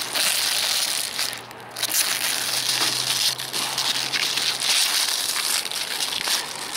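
Clear protective plastic film being peeled off a MaxxAir roof fan's glossy plastic lid, crackling and crinkling, with a brief lull about one and a half seconds in.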